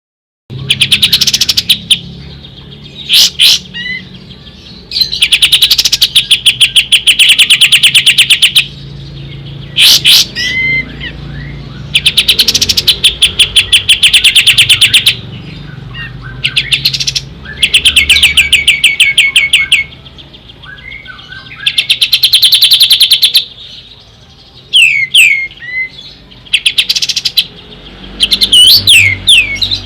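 Kapas tembak songbird calling loudly in repeated rapid-fire trills, each a fast run of evenly spaced notes lasting one to three seconds, broken up by short sweeping whistles.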